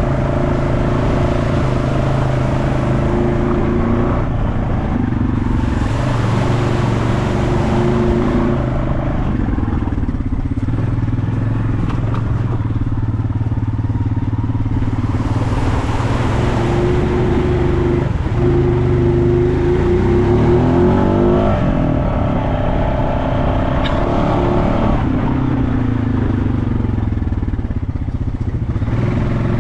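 Off-road vehicle engine running under load on a trail ride, its revs changing repeatedly with a sweep up and back down about two-thirds of the way through. Twice it is joined by a few seconds of rushing hiss.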